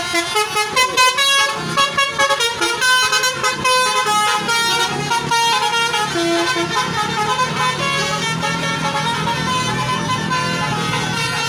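Indonesian 'telolet' multi-tone bus horns playing melodic tooting phrases. Notes change quickly for the first few seconds, then longer held chords follow.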